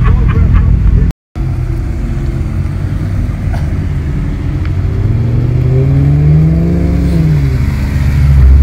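Car engines: a loud low engine rumble that cuts off about a second in. Then an engine revs up in pitch and eases back down, and a loud low rumble builds as a car passes close near the end.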